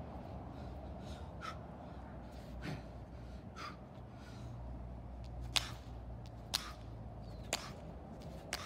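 A man breathing hard during push-ups, with short, sharp exhales about once a second that grow sharper and louder in the second half.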